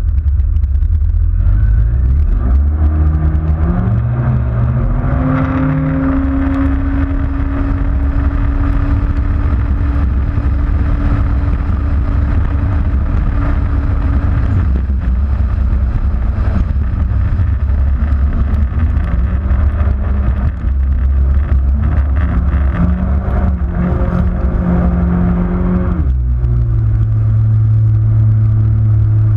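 Yamaha FZR personal watercraft's supercharged four-stroke engine on a full-throttle run: it winds up over the first few seconds, holds a steady high pitch for about ten seconds, then backs off about halfway through, throttles up and down again, and settles to a lower steady note near the end, over a constant low rumble.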